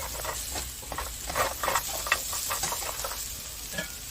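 Oil sizzling in a frying pan while a spatula stirs and scrapes through pieces of fried eggplant, potato and lentil dumplings (bori), with irregular clicks and scrapes of the spatula on the pan.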